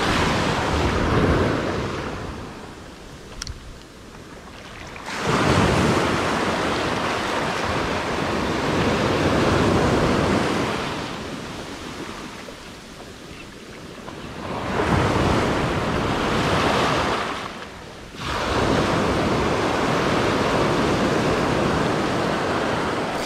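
Small waves breaking on a sand beach close by and washing up and back, rising and falling in long surges with quieter lulls between them.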